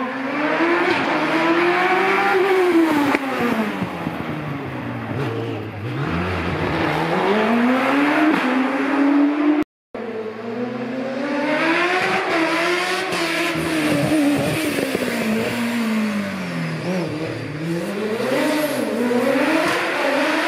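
Racing car engines at hard throttle passing on a hillclimb course, the pitch climbing as they accelerate and falling as they brake and change down, then climbing again. The sound breaks off for a moment about halfway, and the second pass has several quick drops and rises in pitch near the end as the car shifts.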